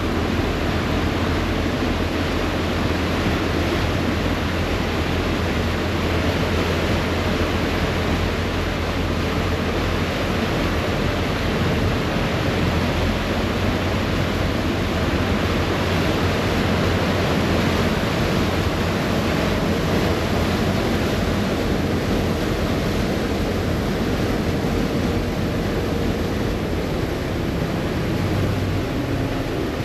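Passenger ferry under way: a steady rush of churning propeller wake water over the continuous low hum of its engines.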